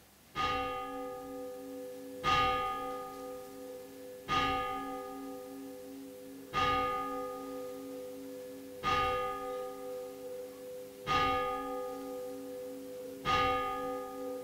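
A single church bell tolling slowly, struck about once every two seconds with seven strokes in all. Each stroke rings on into the next with a pulsing hum. It is the toll for the dead, following the reading of the names of the departed.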